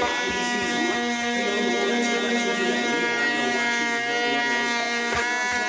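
DeWalt 5-inch random orbit sander with a 120-grit pad running against an oak cabinet door, a steady motor whine with a rough sanding hiss.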